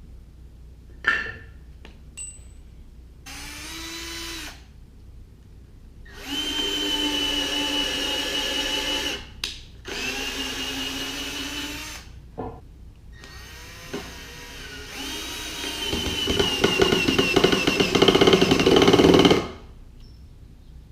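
Power drill driving a screw into wooden planks: the motor whines in four separate runs of one to several seconds, the last and longest one the loudest as the screw is driven home. A sharp click comes about a second in.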